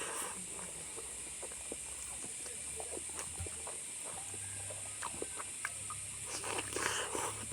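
Someone chewing and eating, with scattered soft irregular clicks and mouth sounds over a steady background hiss, a little louder near the end.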